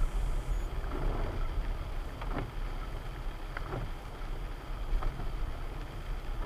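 A vehicle on the move: a steady low rumble with irregular knocks and rattles every second or so.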